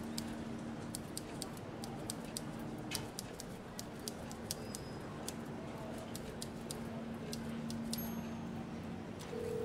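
Quick, irregular sharp clicks and ticks, several a second, over a low steady hum and faint hiss, with a higher steady tone coming in near the end.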